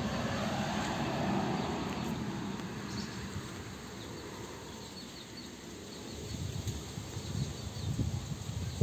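Outdoor background noise with a steady hiss and faint high chirps of insects around the middle, with soft low thuds near the end.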